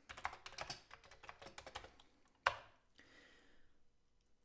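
Keystrokes on a Commodore 64 keyboard typing a command, then one sharper, louder key press about two and a half seconds in: the Return key that starts the disk directory load.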